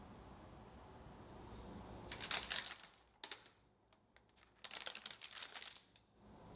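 Parchment paper crackling and rustling in two short spells as a brownie slab is lifted out of its baking pan by the paper lining and set down on a wooden cutting board. A single light tap comes between the two spells.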